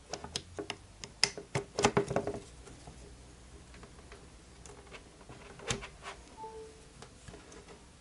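Plastic clicks and rattles of a Lightning cable being handled and its USB plug pushed into a dual-port USB wall charger: a dense run of sharp clicks for about two and a half seconds. Then quieter handling, with one louder click a little past halfway as the Lightning plug goes into an iPad mini.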